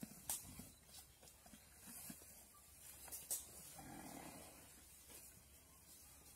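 Faint sounds of Komodo dragons tearing at a deer carcass: a few sharp snaps and cracks, and a short low rasping breath about four seconds in.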